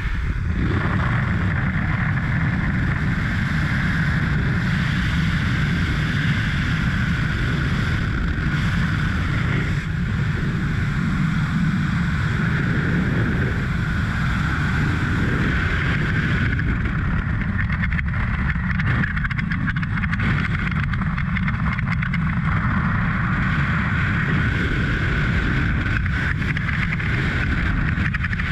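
Loud, steady freefall wind rushing over a head-mounted camera's microphone during a skydive, starting about half a second in as the jumper leaves the jump plane's open door.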